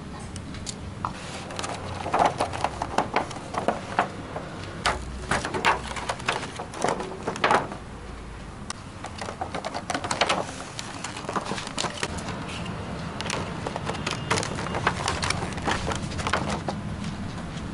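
Thin clear plastic takeaway bento container being handled and its lid pressed shut: a run of crackling clicks and snaps, in two spells with a short lull about eight seconds in.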